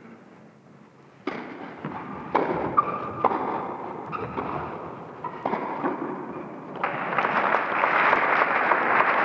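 Tennis rally with wooden rackets: sharp racket-on-ball strikes about a second apart. From about seven seconds in the crowd breaks into applause as the point is won, the clapping growing louder.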